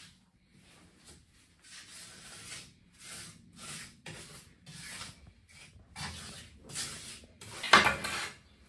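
Repeated scraping and rubbing strokes of floor-tiling work in wet cement mortar. Near the end, one louder knock as a large ceramic floor tile is set down.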